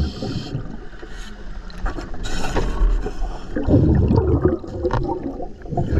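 Scuba regulator breathing heard underwater: short hissing inhalations near the start and about two seconds in, then a long burble of exhaled bubbles around four seconds in.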